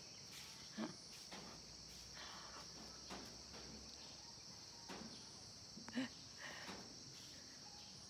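Faint, steady high chirring of insects, with a couple of brief soft knocks.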